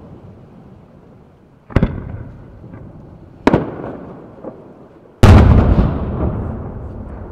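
Aerial firework shells bursting: three sharp booms a second or two apart, the last and loudest about five seconds in, each followed by a long rolling echo that fades away, with a small pop between the second and third.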